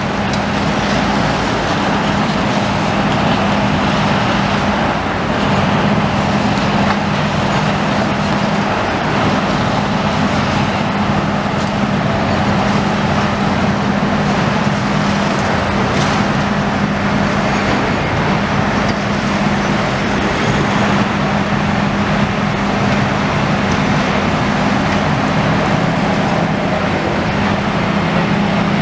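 Steady din of diesel demolition excavators working, a low engine hum under a constant rushing noise, with a few faint knocks.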